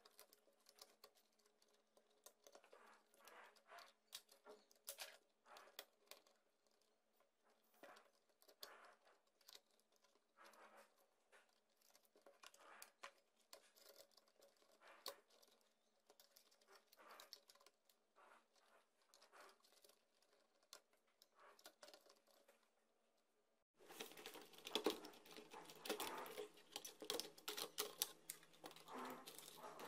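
Faint scattered clicks and rustles of hands working inside an opened laptop, handling plastic parts, connectors and the motherboard. The handling noise gets busier and louder about six seconds before the end, as the motherboard is lifted out and its cables pulled free.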